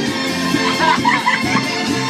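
Loud music playing with a repeating bass line and beat. A voice rises over it briefly near the middle.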